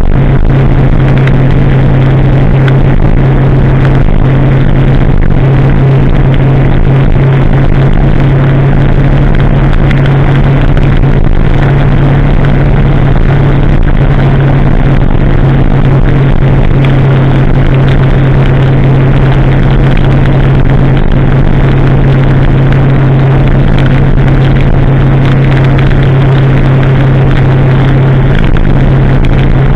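2016 Kawasaki ZX-10R's inline-four engine running at steady cruising revs, a loud constant drone with an even rush of wind and road noise over it.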